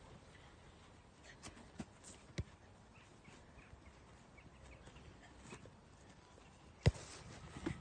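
A sharp smack of a football being struck during goalkeeper drills, about seven seconds in, the loudest sound, with a smaller knock just after it. Before it, only faint outdoor background with a few light knocks.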